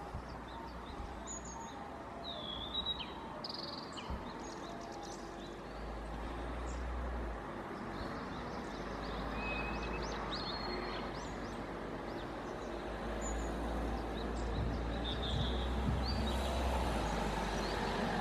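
Outdoor ambience: small birds chirping in short, scattered calls over a steady background hiss and low rumble.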